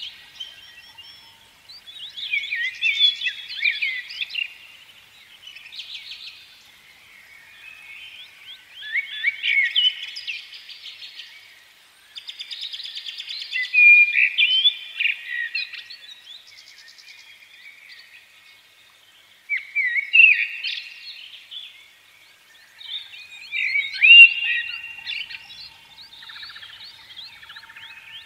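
Birdsong: bursts of chirping and warbling every few seconds, with short quiet gaps between phrases.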